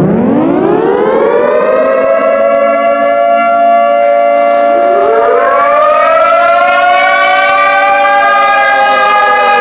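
Civil defense siren winding up: its tone rises to a steady pitch over about two seconds and holds. About halfway through, a second tone sweeps up and holds alongside the first, the two sounding together.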